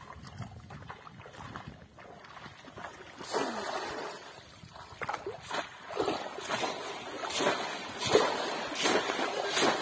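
Bamboo polo fish traps being plunged down hard into shallow river water, each stroke a splash, with wading splashes between. It starts about three seconds in, and the strokes come about twice a second and get louder in the second half as two traps work at once.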